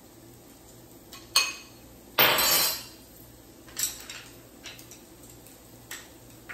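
A metal utensil clinking against a small glass bowl. There is a sharp clink about a second and a half in, a louder scrape of about half a second just after two seconds, then a few lighter clinks.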